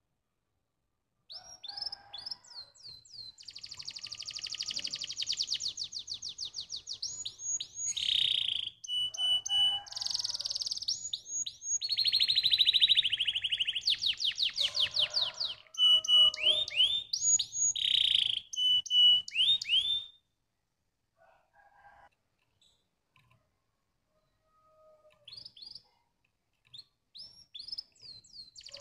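Domestic canary singing: long runs of fast rolling trills and repeated whistled notes, starting about a second in. The song breaks off about two-thirds through, leaving only a few scattered notes before it picks up again at the very end.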